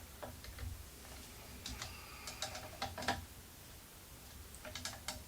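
A few light, scattered clicks and taps of small metal hardware being handled and tightened by hand on a CNC router's stepper motor mount, clustered a couple of seconds in and again near the end.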